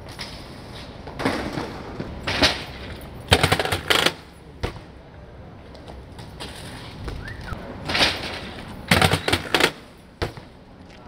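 BMX bike rolling over paving and riding against a tiled wall: two runs of rapid rattling knocks several seconds apart, with single sharp clacks between them.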